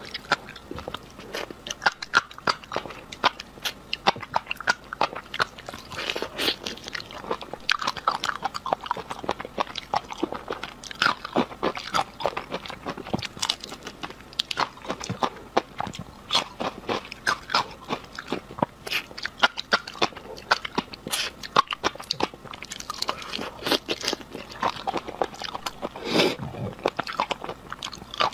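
Close-miked eating of raw shrimp topped with fish roe: shells being pulled apart and bitten, with wet chewing and crunching. Dense sharp clicks and crackles throughout, with no pause.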